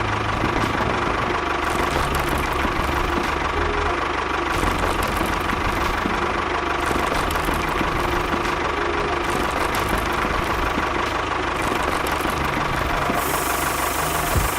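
Small engine of a homemade mini tractor-bulldozer running steadily at an even speed.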